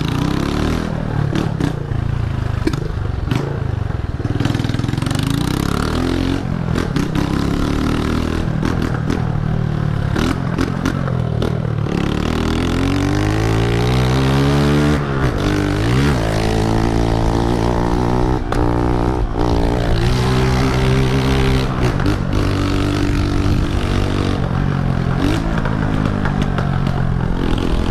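Honda CG 125 motorcycle's single-cylinder four-stroke engine running loud while riding. About twelve seconds in it revs steadily higher for a few seconds, drops sharply as the rider shifts gear, then runs steady.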